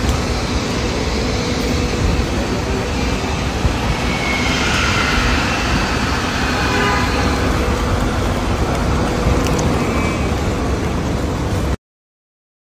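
Steady road-traffic noise at a curbside, with a heavy low rumble. It cuts off abruptly to silence near the end.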